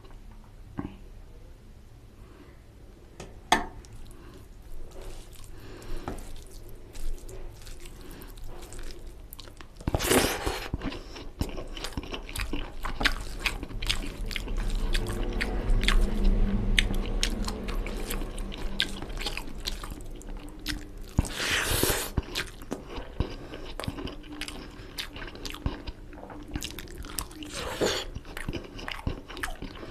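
Close-miked chewing and biting of chicken curry and fried rice, with many small wet mouth clicks. There are two louder, hissier moments, about ten seconds in and again about twenty-two seconds in.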